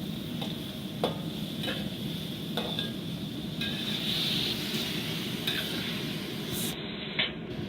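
Scallops, zucchini and pepper sizzling in oil in a hot wok, with a utensil scraping and clinking against the wok every second or so as the stir-fry is tossed. Two of the clinks, about a second in and near the end, are louder.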